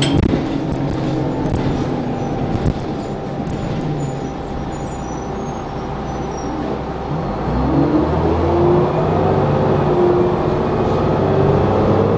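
Orion V city bus heard from inside the cabin: the diesel engine and drivetrain run steadily, ease off briefly, then about seven seconds in the engine note rises in pitch and grows louder as the bus accelerates.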